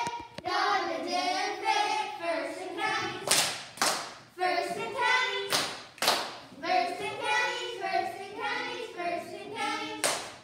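A group of children singing together in unison, with sharp hand claps now and then: a few about three to six seconds in and another near the end.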